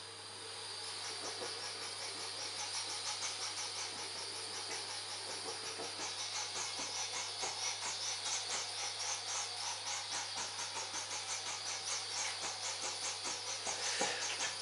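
Small ceramic gas burner firing under a model steam boiler: a steady gas-flame hiss with a fast, regular fluttering pulse, growing a little louder about a second in. The burner possibly isn't burning as well as it could be, which the owner puts down to the airflow.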